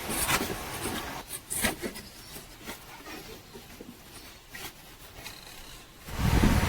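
Hands fitting the engine's drive belt back onto its pulleys: scattered light clicks, knocks and rubbing of rubber and metal being handled. About six seconds in, a loud low rushing noise starts.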